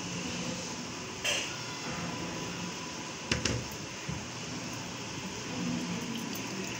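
Blended pomegranate juice draining through a metal mesh strainer: a steady hiss, with two brief knocks about one and three seconds in.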